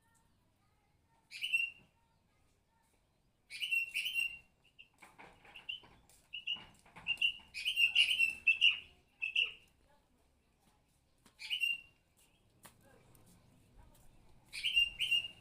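Bird chirping in short, sharp notes, in clusters: one about a second in, a pair near 4 s, a busy run of chirps from about 5 to 9.5 s, another around 11.5 s and a pair near the end, with quiet gaps between.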